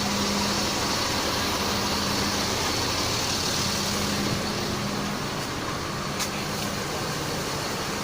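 Steady hum and rush of a standing double-decker bus, its engine idling and its air conditioning running, with one faint click about six seconds in.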